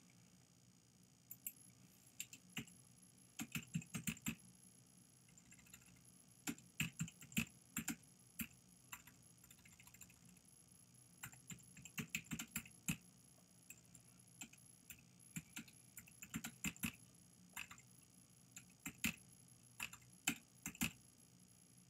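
Computer keyboard being typed on: keystrokes come in short irregular bursts with pauses between them, as a line of text is entered a few letters at a time.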